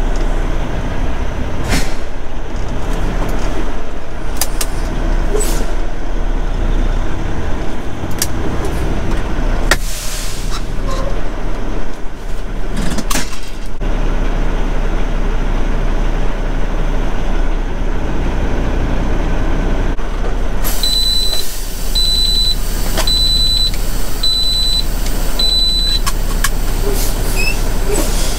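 Semi-truck diesel engine idling with a steady low hum, with occasional clunks and clicks. About 21 seconds in, a hiss rises and a high electronic beep repeats about five times, roughly every second, then stops.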